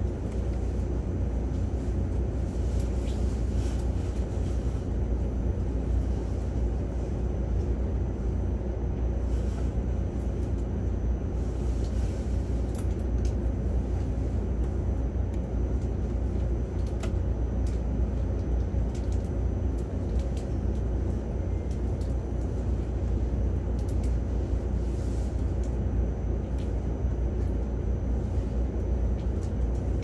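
Mugunghwa-ho passenger train running along the line: a steady low rumble, with a few faint high clicks scattered through it.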